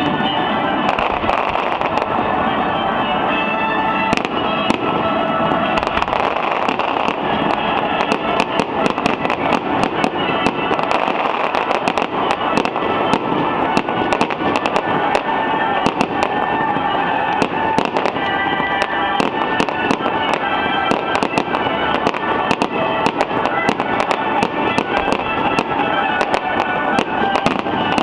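Fireworks going off in a continuous run of sharp bangs and crackles, several a second, with music playing underneath.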